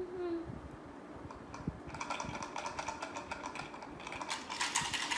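Rapid plastic clicking and rattling from a hand-held toy being worked, starting about two seconds in and growing denser and louder toward the end.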